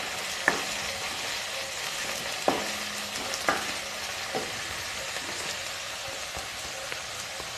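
Chopped onion with garlic and ginger paste frying in oil in a metal kadai: a steady sizzle. A wooden spoon stirs it, knocking against the pan four times.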